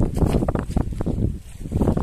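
Wind buffeting the microphone: a gusty low rumble that swells and dips, easing briefly a little past halfway before picking up again.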